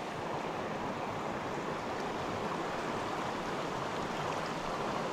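Fast river current rushing steadily through a riffle, a constant even rush of water.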